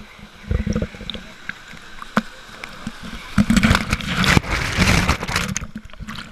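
Water splashing and sloshing close by, in uneven bursts: a short one about half a second in and a longer, louder stretch in the second half, with a few sharp knocks.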